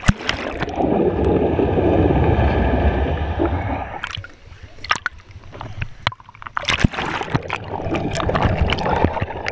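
Muffled underwater rumble and bubbling picked up by an action camera in a swimming pool. It gives way about four seconds in to sharper splashes as the camera comes up through the surface, then the muffled underwater sound returns as it goes back under.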